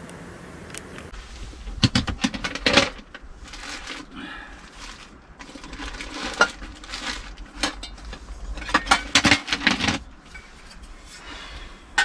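Small metal camp cookware and gear being handled: clinks, knocks and rattles in three busy spells, with quieter rustling and scraping between.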